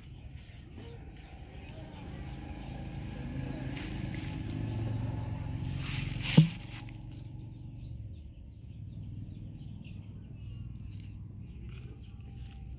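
A motor vehicle's engine hum that grows louder over a few seconds, then a sharp thump about six seconds in, the loudest sound here, followed by a fainter low hum.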